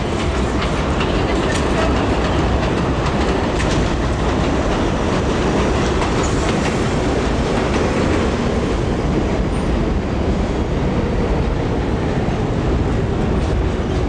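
New York City subway train on the elevated J/Z line running steadily, a continuous rumble of wheels on the rails with scattered sharp clicks and clatter over the rail joints.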